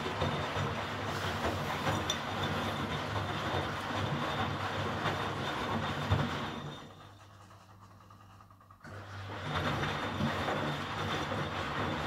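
1988 Miele WS 5406 front-loading washing machine tumbling wet laundry in its wash cycle: steady motor hum with the rumble and swish of the turning drum. About six and a half seconds in it winds down, pauses for about two seconds, then starts up again abruptly as the drum turns the other way.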